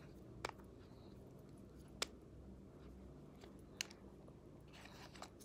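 Near silence broken by three faint, sharp plastic clicks spread over a few seconds and a soft rustle near the end, from a plastic makeup cushion compact being handled.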